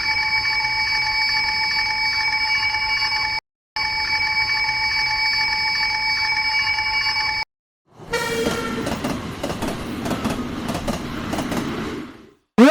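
Japanese railway crossing alarm ringing its steady 'kan-kan' tone in two stretches of about three and a half seconds each, with a brief break between. Then a train passes for about four seconds with a rumble and rapid wheel clatter. A short rising tone comes right at the end.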